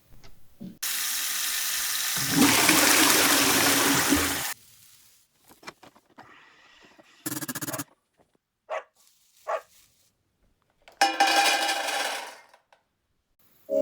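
A string of separate household sounds. The loudest is a rushing of water lasting about four seconds near the start, growing louder and fuller about halfway through; after it come short clicks and knocks and two brief buzzing, tonal bursts.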